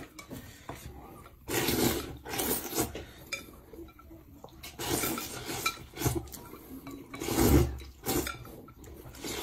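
Plain boiled noodles slurped from a porcelain bowl in three loud slurps, the last the loudest, with chopsticks clinking against the bowls in between.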